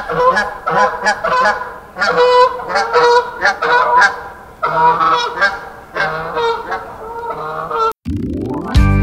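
A flock of flamingos honking, many overlapping calls in quick clusters, until they cut off about eight seconds in.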